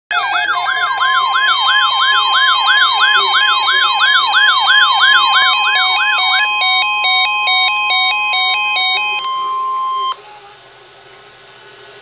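Several NOAA weather alert radios going off together for a lake effect snow warning: a fast warbling siren sweeping up and down about three times a second, stepped beeping alarm tones, and the steady weather radio warning tone. The siren stops about six seconds in, and the rest cuts off about ten seconds in, leaving faint hiss.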